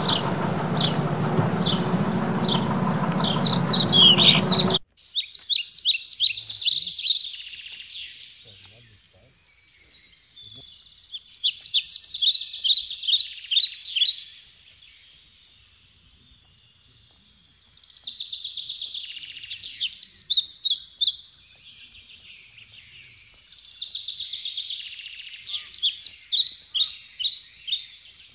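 Birds chirping in rapid chattering series of notes, in bursts of two or three seconds with quieter gaps between. For the first few seconds a steady low background noise runs under the calls, then cuts off abruptly.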